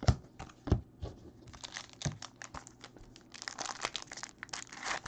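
A few sharp taps of trading cards being handled, then a foil card-pack wrapper crinkling and tearing open. The crinkling gets busier over the last two seconds.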